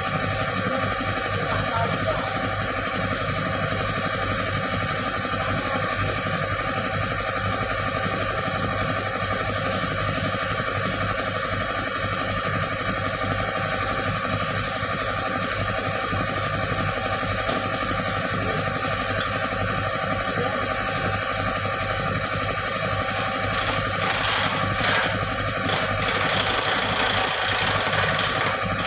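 Excavator diesel engine idling steadily. From about 23 seconds in, a harsh hissing rasp joins it in irregular bursts, and it becomes almost continuous near the end.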